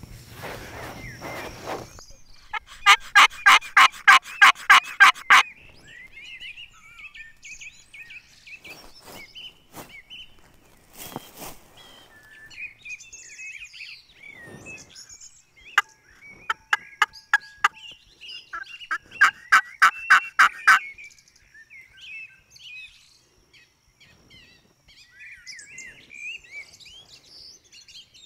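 Wild turkey calling: two loud runs of rapid, evenly repeated notes, the first about three seconds in and the second about two-thirds of the way through, with a shorter, fainter run between them. Small songbirds chirp throughout.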